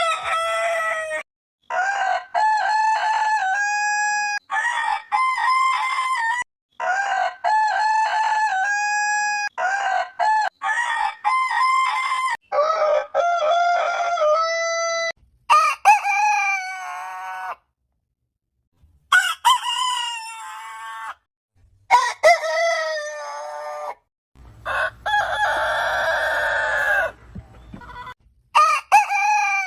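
Domestic roosters crowing, one crow after another, with abrupt cuts between separate recordings. One crow near the end has a low hum under it.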